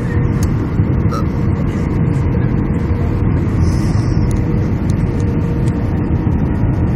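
Steady cabin noise of a jet airliner heard from a window seat over the wing during the descent to land, with flaps extended: a loud, even rumble of engines and rushing air with a faint steady whine.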